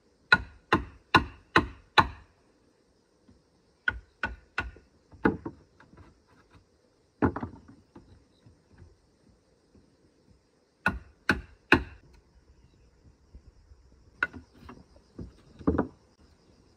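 A hand blade chopping into a piece of wood with sharp blows in bursts: five quick strikes about two a second, then shorter runs of two or three and single blows. Insects start chirring faintly near the end.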